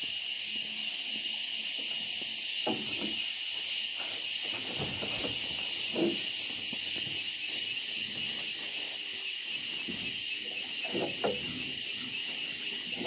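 A gillnet being hauled by hand into an aluminium boat, with a few short knocks and rustles of the net against the hull. A steady high hiss lies under them.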